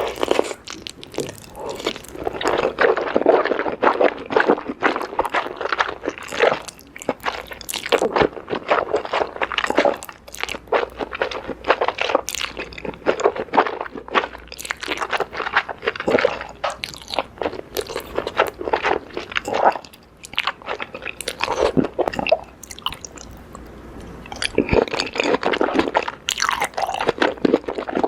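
A person eating a meal of spicy noodles, enoki mushrooms and squid close to the microphone, biting and chewing in a dense run of mouth clicks and smacks, with a short quieter spell about twenty seconds in.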